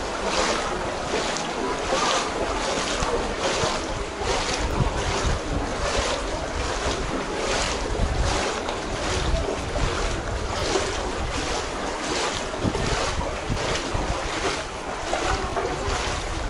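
Footsteps wading through shallow floodwater: a rhythmic swish and splash about twice a second, one with each stride.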